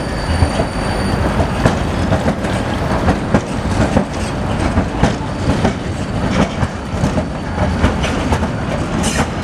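Vienna street tram passing close by, a steady rumble broken by many irregular clicks and clacks of its wheels on the rails. A thin high whine stops about a second in.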